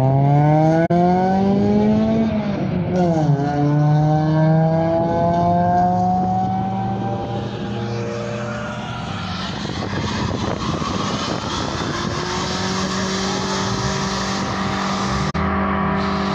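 Car engine revving hard: its pitch climbs, drops about three seconds in, climbs again, then holds at a fairly steady high note for the last few seconds, with a rushing hiss over it through the second half.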